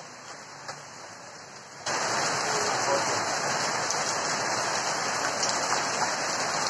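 Steady rain falling, turning suddenly louder and heavier about two seconds in.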